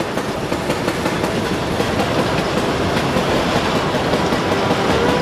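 Railroad speeder (track motorcar) running along the rails, a rapid mechanical clatter of its wheels over the track.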